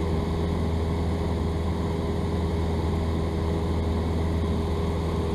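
Cessna 172's piston engine and propeller droning steadily in flight, heard from inside the cabin as an even low hum.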